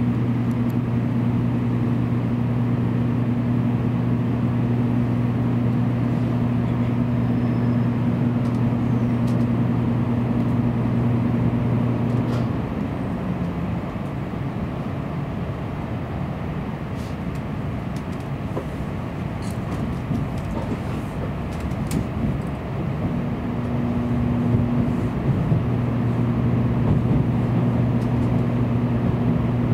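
Inside the cabin of a Tokaido Shinkansen train pulling out of the station: a steady running rumble with a low hum. The hum drops out about twelve seconds in and returns about ten seconds later.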